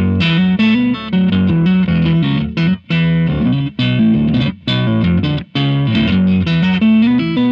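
Fender Stratocaster electric guitar in D A C♯ F♯ A E tuning, played on the neck pickup through a compressor and a boost pedal driven into overdrive, with a Meris synth pedal adding a sub-octave: a gritty, overdriven riff of quick notes with a low octave under it, in phrases broken by short gaps. The tone is still a little sharp, not yet as mid-focused as the recording it is meant to copy.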